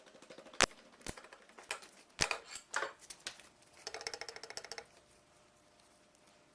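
Hand tools and metal engine parts clinking and knocking while a Volvo D12 diesel engine's pistons are being taken out, with a fast run of rattling clicks about four seconds in.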